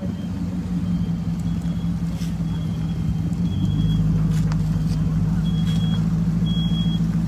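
A car's engine and road noise heard from inside the cabin, a steady low drone while driving slowly, growing a little louder about three and a half seconds in.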